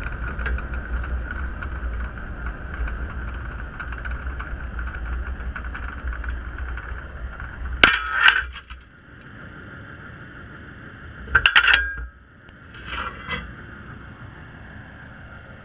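Sound picked up by an underwater drop camera on a CTD frame: a steady low rumble with a hum, then sharp metallic clinks and knocks about 8 s in. After the first knocks the low rumble stops. More clusters of knocks follow around 11–12 s and 13 s, around the time the frame reaches the seafloor.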